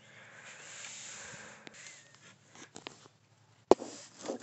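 Handling noise: a soft rustling hiss with a few small clicks, then a single sharp knock about three and a half seconds in, the loudest sound.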